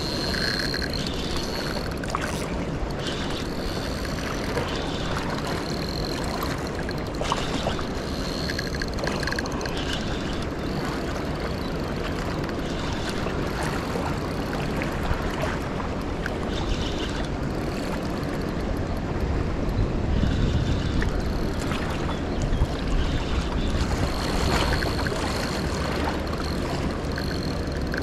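Wind buffeting the microphone beside a flowing river: a steady rushing noise with a low rumble that swells a little about twenty seconds in. Short high-pitched tones come and go over it.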